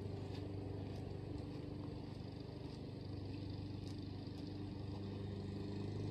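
A motor engine running steadily: an even, low hum.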